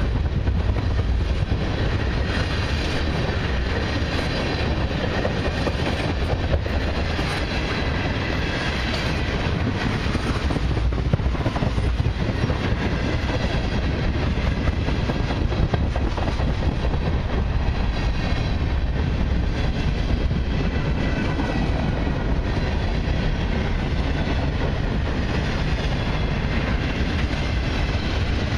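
Freight train's tank cars and boxcars rolling past, a steady rumble and rattle of steel wheels on the rails.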